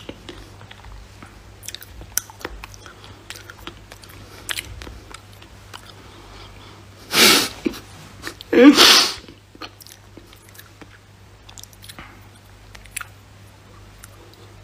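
A man laughing in two loud breathy bursts about a second apart, close to a phone's microphone, over faint scattered clicks of mouth or handling noise.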